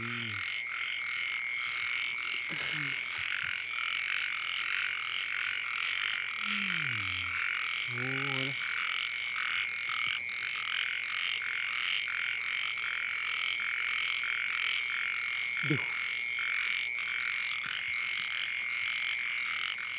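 Chorus of small frogs calling: a steady high trill with dense, rapid pulsing calls over it, and a few brief lower-pitched sounds.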